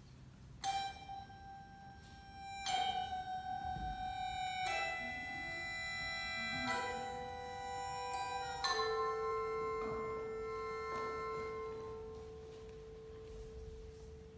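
Music from the show's score: five bell-like struck chords about two seconds apart, each ringing on into the next. After the last, a single held tone fades slowly.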